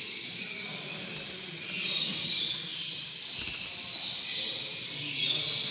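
Many caged songbirds twittering and singing at once, a dense unbroken high chorus, over a low background rumble.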